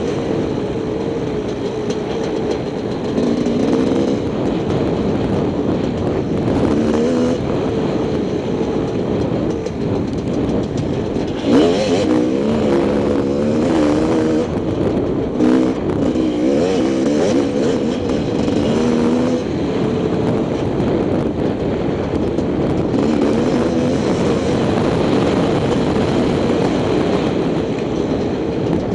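Enduro dirt bike engine revving up and down as it is ridden along a trail, its pitch rising and falling constantly with the throttle. A sharp knock about twelve seconds in, and another about three seconds later.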